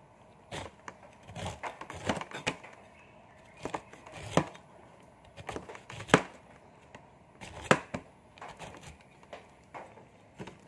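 Knife cutting food on a chopping board: irregular sharp knocks, unevenly spaced, two of them louder about six and eight seconds in.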